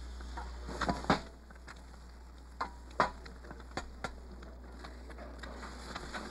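Bacon frying in a pan: a faint sizzle with scattered sharp pops and crackles of spitting fat, a few close together about a second in and more around three and four seconds in.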